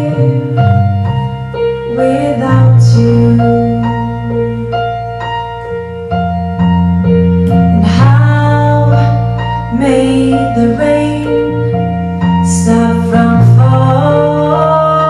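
A live band playing a slow pop song: a woman singing over piano, with cello, bass and drums, and bright cymbal strikes every few seconds.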